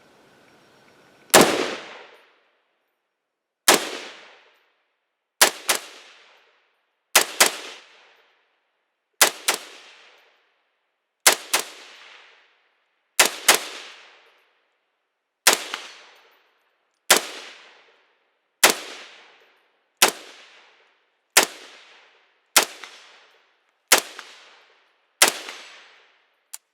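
HK91 semi-automatic rifle in 7.62x51mm (.308) firing a string of single shots at an even pace, about one to two seconds apart, each shot loud and sharp with a short ringing tail.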